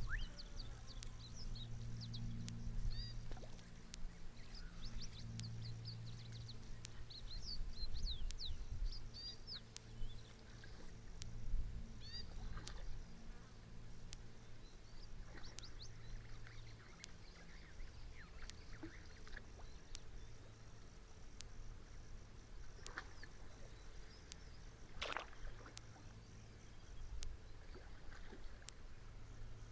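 Outdoor ambience: small birds twittering in quick clusters of short high chirps through the first half, then a few single calls, over a steady low hum and scattered faint ticks.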